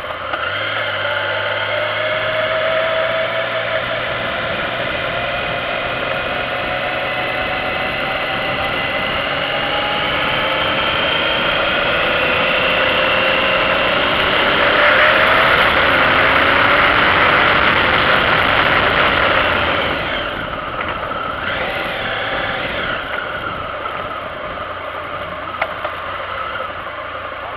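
Motorcycle engine running under way on a winding mountain road, its pitch rising and falling with throttle and gear changes, under steady wind rush. It grows loudest a little past the middle, then eases off.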